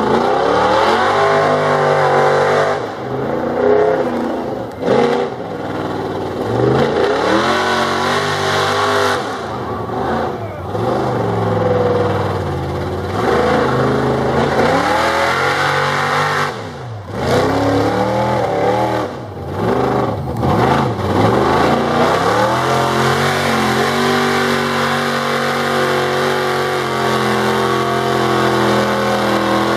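Mega truck engine revving hard in a mud pit, the pitch climbing and dropping again and again as the driver works the throttle, then holding high and steady near the end. A steady hiss of mud and water sprays from the tires underneath.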